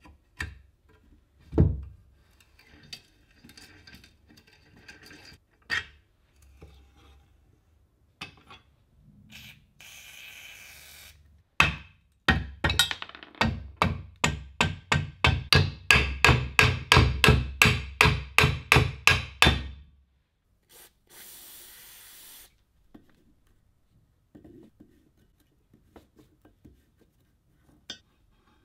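Rusty cast-iron drill stand being taken apart with a hex key: scattered metal clicks and knocks and short stretches of rubbing, with a run of quick clicks, about four a second for some seven seconds, in the middle.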